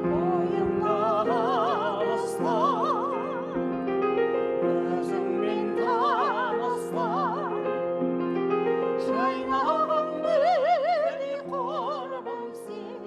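Music: a Kazakh folk song sung with a wide, slow vibrato over sustained accompanying chords.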